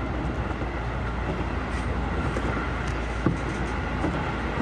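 Tokyo Metro Hibiya Line train heard from inside the car while running: a steady rumble of wheels on rail, with a single sharp knock a little past the middle.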